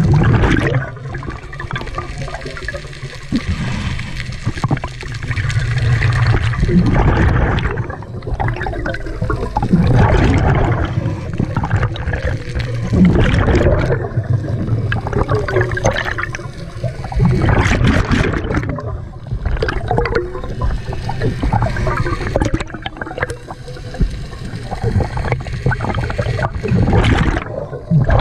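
Scuba diver breathing through a regulator underwater, heard inside the camera housing: a bubbling rush of exhaled air swells every three to four seconds, with quieter stretches between breaths.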